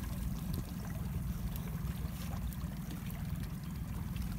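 Water lapping and trickling against the hull of a small boat, under a steady low rumble.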